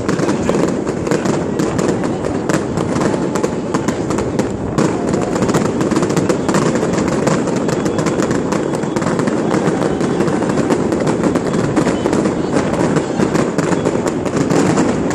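Fireworks going off in a dense, continuous run of sharp pops and crackles.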